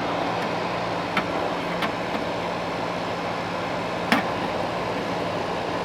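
Frigidaire FAD504DWD 50-pint dehumidifier running steadily, its compressor and fan giving an even hum with a constant low tone. Its control panel works again after the button contacts were cleaned. A few short sharp clicks sound over it, the loudest about four seconds in.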